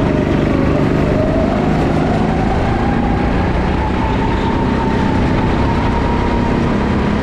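Go-kart running at speed on an indoor track, heard from the driver's seat: a steady whine that rises slowly in pitch as the kart speeds up, over a constant rumble.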